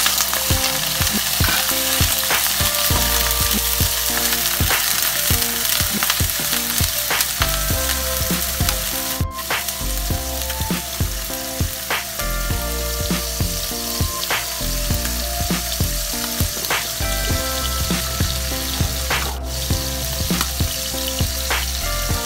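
Chicken livers sizzling steadily as they fry in oil in a nonstick pan, stirred at first with a plastic spatula.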